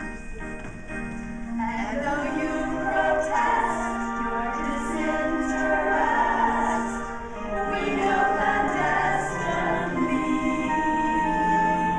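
A group of women singing together, with a long high held note near the end.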